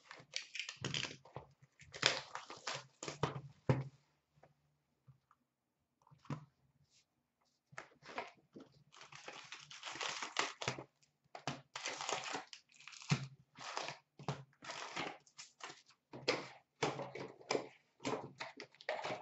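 Hands tearing open a sealed hockey card hobby box: the cardboard tear strip ripping off, then flaps, packs and paper being handled and rustled. The sound comes in irregular crinkling, tearing bursts, with a lull of a few seconds about a third of the way in.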